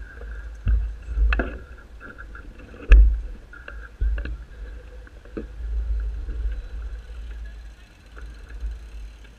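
Low rumble of wind and handling noise on a moving camera's microphone, broken by several sharp knocks and bumps, the loudest about three seconds in.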